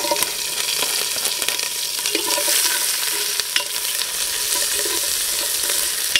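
Chopped onion, bell pepper and long green chillies sizzling in hot oil in a large steel pot, stirred with a metal spoon that clicks and scrapes against the pot. The sautéing base has just gone into the oil.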